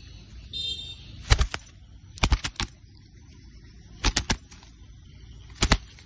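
Zebra dove caught in a trap, flapping its wings in four short bursts of two to four quick wingbeats, its wings striking the trap's sticks as it struggles.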